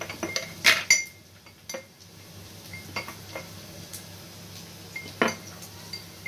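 Metal spoon clinking and tapping against a kadhai and other metal kitchenware as spices are added to a simmering tomato gravy: a handful of sharp strikes with a brief ring. The loudest two come close together about a second in.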